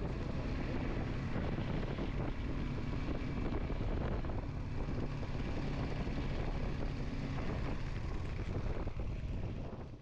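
Suzuki V-Strom 250 motorcycle running steadily at road speed, its engine hum under heavy wind rush on the microphone; the sound cuts off abruptly at the end.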